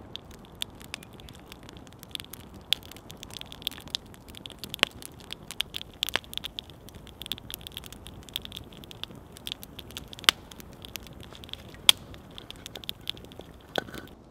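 Open wood fire crackling steadily with many small sharp pops, a few louder pops standing out in the second half.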